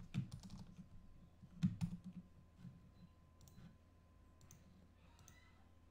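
Computer mouse button clicks, a dozen or so at irregular intervals, some in quick pairs, the loudest a little under two seconds in.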